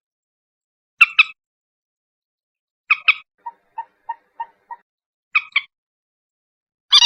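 Common moorhen calling: sharp double notes, two quick strokes each time, repeated about every two seconds. Between the second and third of these comes a run of five soft, lower clucks at about three a second.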